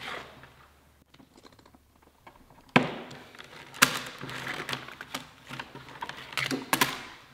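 Coiled nylon air-line tubing handled on a wooden workbench: a sharp knock almost three seconds in, then irregular rustling and clicking for about four seconds.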